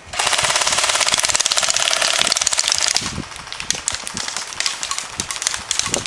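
Airsoft gun firing full-auto in one rapid, loud burst of about three seconds: suppressing fire laid into a bunker. After the burst come scattered, lighter airsoft shots.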